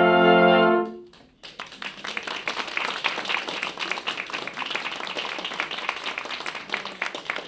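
Brass sextet holding a final chord that cuts off about a second in, then, after a brief gap, audience applause.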